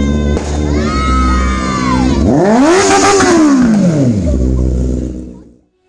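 A sport motorcycle's engine revved once, its pitch climbing and then falling back over about two seconds, over steady background music. The sound fades out shortly before the end.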